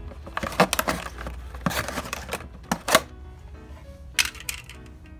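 A thin plastic water bottle being cut through with a utility knife: a quick series of sharp crackles and snaps of the plastic over the first three seconds, with a couple more about four seconds in. Soft background music with held notes runs underneath and is clearer in the second half.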